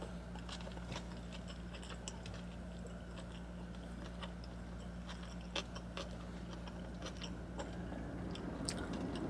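Close-up chewing of a cheeseburger, with many small irregular wet mouth clicks, over a steady low hum.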